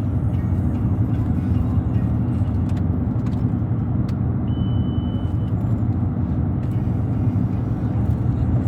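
Steady road and engine noise inside the cabin of a moving car. A short high beep sounds about halfway through, with a few faint clicks.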